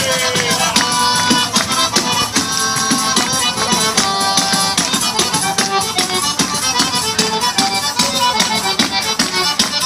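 Instrumental tarantella: accordion playing a fast melody over a quick, even beat of tambourine strokes.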